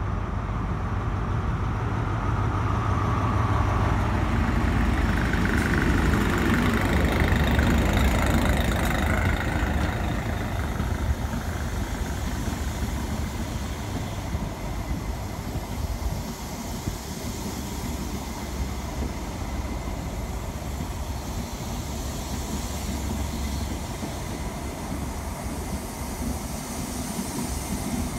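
A diesel High Speed Train (InterCity 125) passing through a station. The power car's engine rumble swells and is loudest about six to ten seconds in as it goes by, then eases to the steady rumble of the coaches rolling past.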